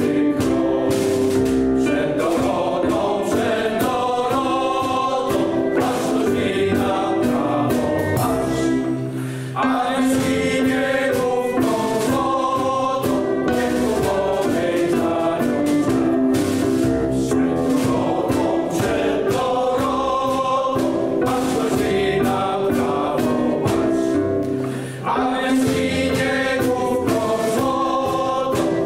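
Mixed choir of men's and women's voices singing a Polish patriotic song in several parts, over instrumental accompaniment with a steady march beat. The singing breaks off briefly between phrases about ten seconds in and again about 25 seconds in.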